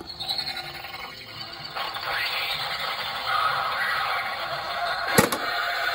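Tekky Design 'Bug Blender' animated Halloween prop activated with a click of its try-me button, then playing a harsh, noisy blender-like sound effect through its small speaker that gets louder after about two seconds, with a sharp knock about five seconds in.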